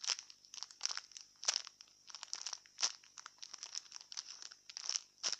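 Irregular crinkling and crackling as a fried-egg squishy toy is squeezed and handled. It is a string of short, sharp crackles with a few louder ones.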